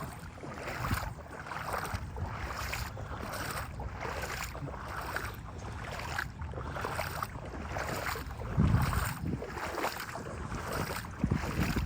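Footsteps wading through ankle-to-shin-deep floodwater, splashing at an even walking pace of about two strides a second, with some wind on the microphone.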